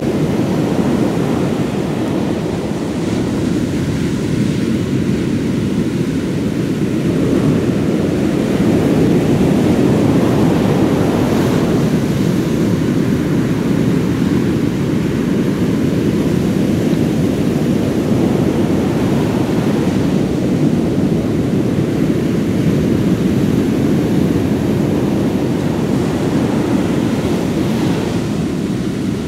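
Heavy surf breaking on a beach, with wind rumbling on the microphone. The waves surge in roughly every eight seconds.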